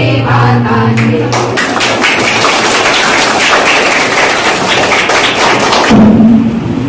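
A group of girls singing a Bengali song to a harmonium drone, ending about a second and a half in. Then a dense clatter of clapping and bustle that stops abruptly about six seconds in, followed by a brief loud low note.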